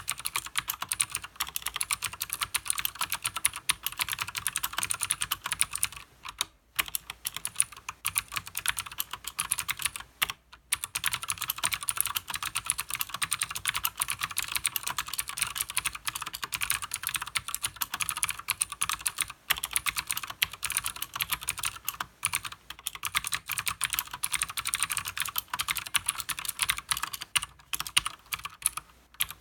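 Continuous fast typing on a Leopold FC900R full-size mechanical keyboard with Cherry MX Blue switches and PBT keycaps: dense, crisp clicks from the clicky switches, with short pauses about six and a half and ten and a half seconds in.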